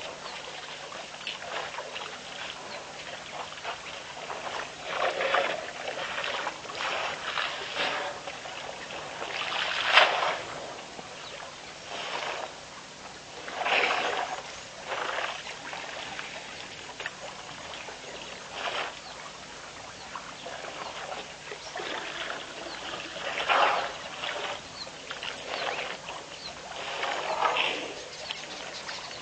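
Water splashing and trickling in irregular bursts a second or two apart, from animals drinking at a waterhole; the loudest splash comes about ten seconds in.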